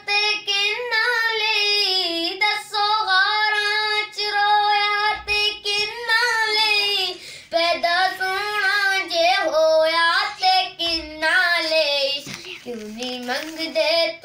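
A boy singing a naat solo with no instruments: long held notes with wavering, ornamented pitch bends, broken by short pauses for breath between phrases.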